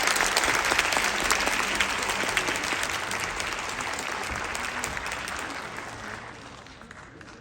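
Audience applauding, loud at first and then dying away gradually over the last few seconds.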